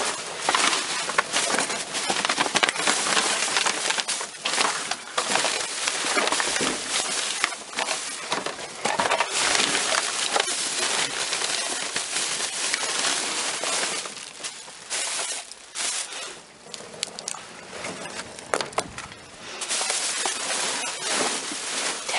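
Rummaging by hand through a dumpster's discarded contents: plastic and packaging rustling and crackling, with small items knocking and clattering. It thins out for a few seconds about two-thirds of the way through, then picks up again.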